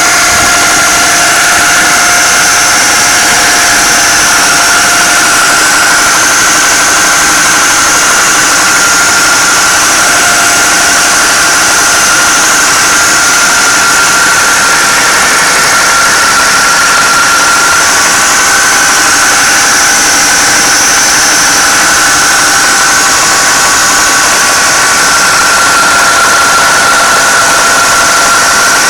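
2009 Pontiac G8 GT's 6.0-litre V8 running steadily with a knocking noise that the owner hears at about 1500 rpm but not at idle, and takes for a failing rod bearing on the bottom end rather than a bad lifter.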